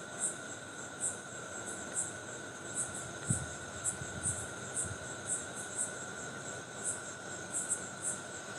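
A cricket chirping over and over, about two short high chirps a second, over a steady high whine; a few soft low knocks come around the middle.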